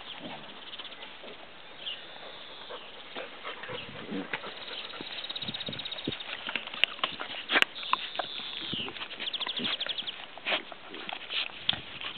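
A large dog and a puppy play-fighting on grass: the pinned puppy gives high squeals and whimpers amid scuffling. A falling squeal comes about eight seconds in, followed by a quick run of short high sounds.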